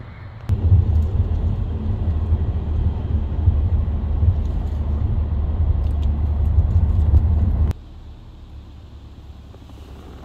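Car cabin noise while driving: a steady low rumble of tyres and engine that starts abruptly about half a second in and cuts off abruptly near the end, with quieter outdoor ambience before and after.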